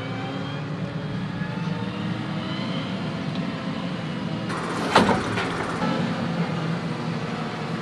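Tractor engine running steadily, heard from inside the cab as the tractor is driven, with a single sharp clunk about five seconds in.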